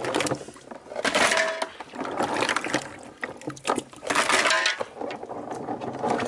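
Freshwater mussel shells clattering and clinking against each other and their container, with water splashing, in several irregular bursts as the mussels are washed and moved.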